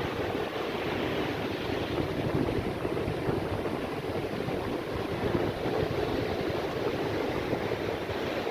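Rough sea surf washing steadily on the shore, mixed with wind rumbling on the microphone.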